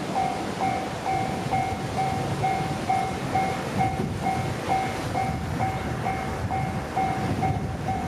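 Japanese railway level-crossing warning alarm ringing, a repeated electronic clang of about two strikes a second, over a steady low noise.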